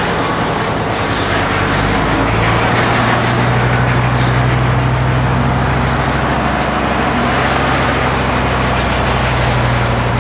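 Large engine-driven circular stone saw running steadily as its blade cuts through a marble block: a constant engine hum under a dense grinding hiss. The hum's pitch steps up slightly about two seconds in.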